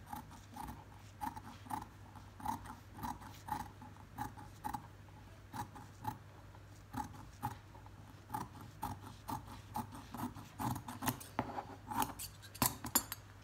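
Large metal tailor's shears cutting stiff canvas interlining: a run of crisp snips, about two a second, coming quicker near the end.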